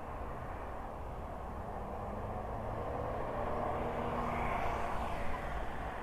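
Road traffic: a motor vehicle passing close by, its engine note and tyre noise swelling from about two seconds in and loudest near the end.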